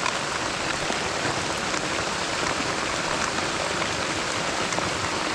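Heavy rain falling steadily, an even hiss of drops with scattered faint ticks of drops striking nearby surfaces.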